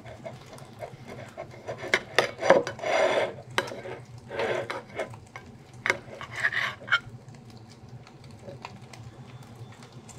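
Knife sawing through a grilled steak on a plate, with repeated scrapes and clicks of the knife and fork against the plate, in several strokes between the first and seventh second.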